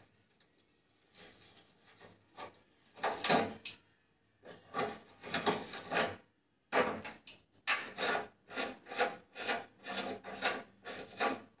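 Metal scraping and grating as a bolt on a gas stove's burner pipe is gripped with cutting pliers and twisted loose. The strokes are scattered at first, then come in a quick run of short strokes from about seven seconds in.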